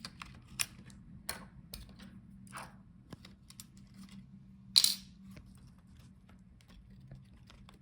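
Scattered light clicks and taps of a screwdriver and small laptop parts being handled during disassembly, with one louder clack about five seconds in.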